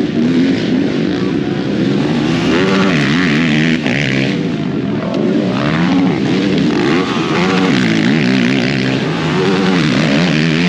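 Racing ATV engines revving up and down over and over, more than one engine running at once.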